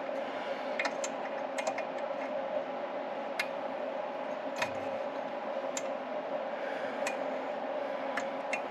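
Scattered light metallic clicks and ticks of a wrench and small parts being worked on the cylinder head of a Yamaha G2 golf cart engine, about one every second or so, over a steady background hum.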